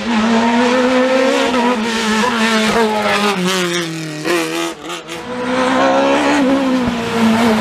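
Open-cockpit sports prototype race car at full attack on a hillclimb. Its engine note drops in steps as it brakes and shifts down for a bend, briefly lifts off about five seconds in, then climbs again as it accelerates out of the corner.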